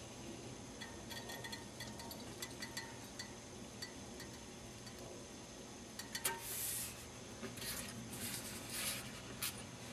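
Foam being pushed through a homemade hot-wire cutter and over its wooden table: scattered small ticks and crackles, then several short scratchy hisses from about six seconds in as the cut pieces are slid and handled on the tabletop.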